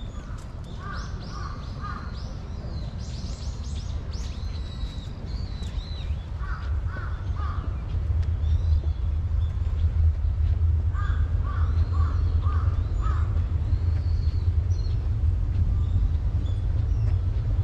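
Crows cawing in three bouts of three or four caws: near the start, about seven seconds in and about eleven seconds in. Smaller birds chirp higher up over the first few seconds, under a steady low rumble that grows louder about halfway through.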